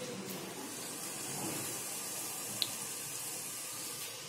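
Steady hiss of onions frying in oil in a steel pot, with one light click about two and a half seconds in.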